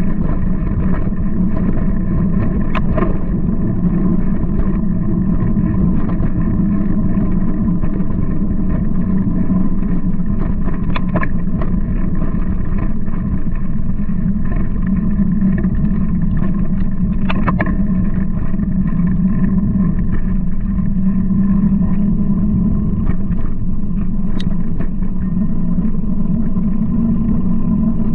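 Steady rumble of a mountain bike riding a rough dirt trail, picked up by a handlebar-mounted camera: wind on the microphone mixed with tyre and frame noise, with a few sharp knocks from bumps.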